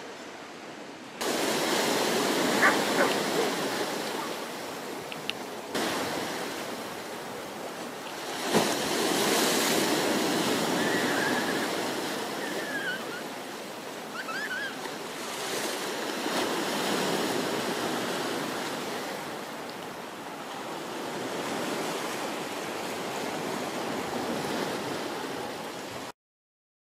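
Sea surf washing onto a sandy beach, a steady rush that swells and ebbs every few seconds, with a few brief high chirps near the middle. It stops abruptly near the end.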